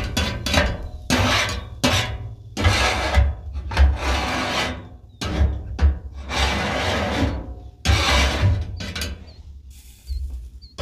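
Metal griddle scraper scraping the hot steel cooktop of a Blackstone griddle in repeated strokes, pushing off water and cooked-on residue during cleaning. The strokes thin out near the end.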